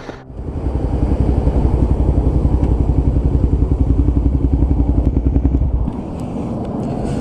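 Motorcycle engine running with a fast, even pulsing beat that starts suddenly; about six seconds in it drops to a lower, steadier sound.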